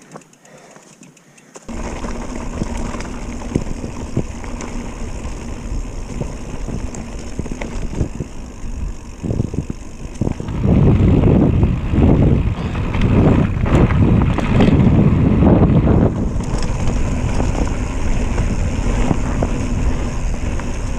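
Mountain bike riding along a dirt trail: tyre rumble and rattling clicks from the bike, with wind buffeting the camera microphone. It starts suddenly about two seconds in, and the wind gusts heavier through the middle.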